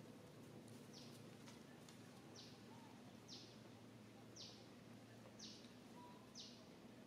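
Faint, high-pitched bird call repeated about once a second, each note a short downward-sliding chirp, over a quiet low background hum.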